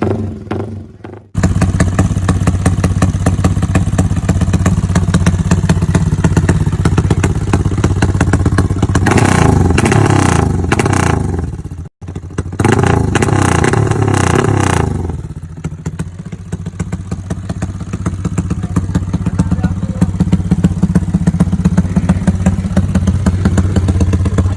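Yamaha Y15ZR motorcycle's single-cylinder four-stroke engine running steadily, revved up twice around the middle with a brief cut-out between the two revs, then settling back to a steady run.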